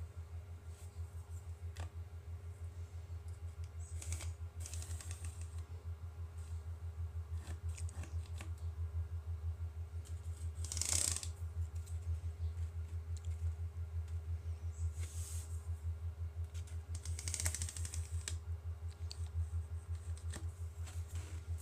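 Pencil drawing lines on a rocket body tube: a few short scratchy strokes, the loudest about eleven seconds in, with light clicks of handling, over a steady low hum.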